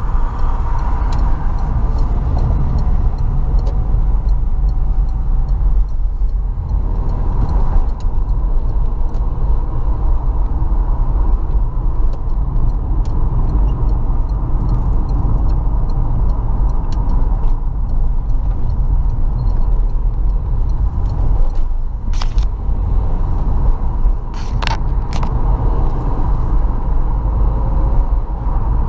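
Car driving, with steady road and engine rumble heard from inside the cabin, and a few sharp clicks about three quarters of the way in.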